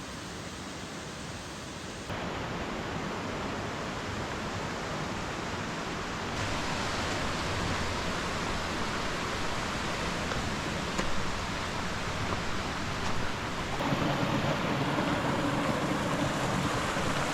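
Steady rushing of a mountain stream's water, an even hiss that jumps abruptly louder three times.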